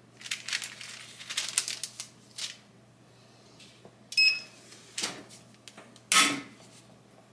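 Parchment paper rustling and crinkling as it is smoothed over the transfer, then the heat press being pulled shut: a few sharp metal clanks and clunks, the loudest about six seconds in as the clamshell platen locks down.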